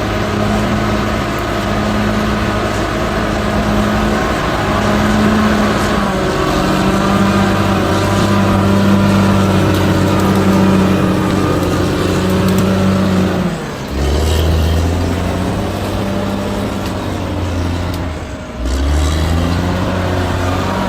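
Heavy diesel engine of a bulldozer running under load. The engine note dips briefly and shifts pitch twice, about two thirds of the way through and again near the end.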